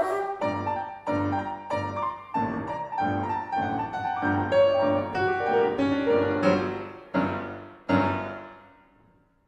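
Grand piano playing a passage of struck chords, closing with two loud chords about seven and eight seconds in that ring on and fade away.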